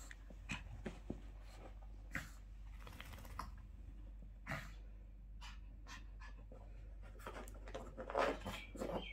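Small dog rubbing and digging at towels on a carpet: scattered soft rustles and scuffs, with the dog panting and a louder burst of breathing and rustling near the end.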